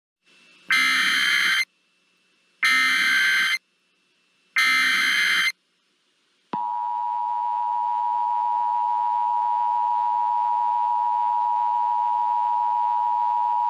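Emergency Alert System tones: three short screeching SAME header data bursts about two seconds apart, then, about six and a half seconds in, the steady two-tone EAS attention signal begins and holds.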